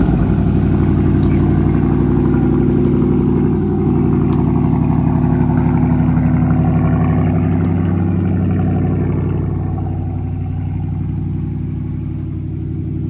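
A Dodge car's engine, just started, idling loudly and steadily. It settles a little quieter after about nine seconds.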